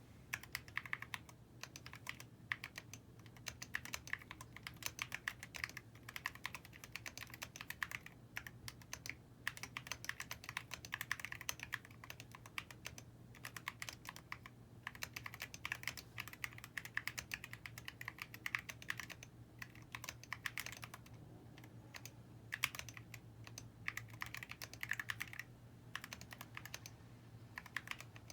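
Fast, continuous typing on a 40% mechanical keyboard with Ajazz Banana switches, a brass plate, Milk and Honey keycaps and a high-profile CNC aluminium case. The key strokes are bright, high-pitched clacks, which the owner puts down to the brass plate. A few brief pauses break up the typing.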